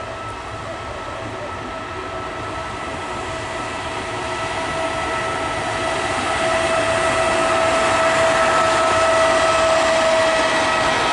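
E.464 electric locomotive hauling a regional express train of passenger coaches as it approaches and runs alongside, growing steadily louder. A steady whine holds one pitch over the rumble of the train.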